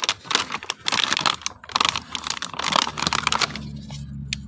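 Thin clear plastic blister packaging of a toy set crinkling and crackling as hands tear it open. This stops about three and a half seconds in, and a low steady hum follows near the end.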